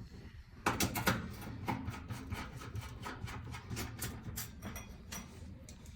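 Screws being tightened by hand into the range's sheet-metal panel: a run of irregular clicks and scraping that starts about a second in.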